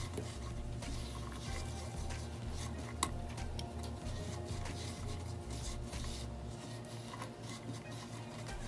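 Silicone spatula stirring pecans through a bubbling butter-and-sugar glaze in a nonstick pan, with light sizzling and scattered scraping clicks against the pan. One sharper knock comes about three seconds in.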